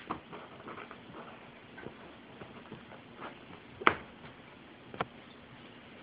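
Two cats wrestling on a rug: light scuffling with scattered sharp knocks, the loudest about four seconds in and another about a second later.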